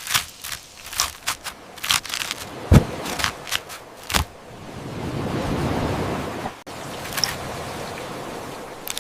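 Kitchen cooking sounds: a quick run of sharp taps and clicks for about four seconds, then a swelling hiss that cuts off suddenly, followed by a steadier, quieter hiss.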